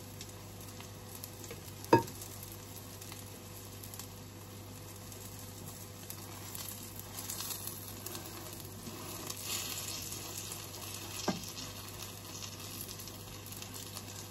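Tortang okra, an egg and okra omelette, frying in hot oil in a pan with a steady sizzle. A utensil taps sharply against the pan about two seconds in and again more lightly later on.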